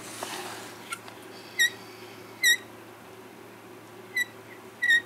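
Four short, high-pitched squeaks, each bending slightly in pitch, over a faint steady hum.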